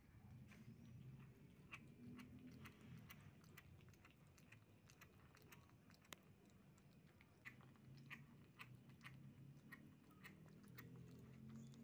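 Kittens chewing and smacking on sticky steamed shark meat from a metal bowl, faint quick wet clicks coming irregularly several times a second. A low steady hum sounds underneath near the start and again from about two-thirds in.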